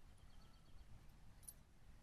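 Near silence, with one faint click about one and a half seconds in.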